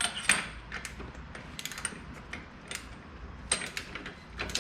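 Ratchet wrench clicking as a bicycle axle nut is tightened down, in short irregular runs of sharp clicks.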